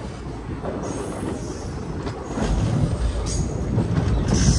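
Express train's coaches running on the track, heard from an open coach window: a steady rail and wheel noise that grows louder from about two seconds in.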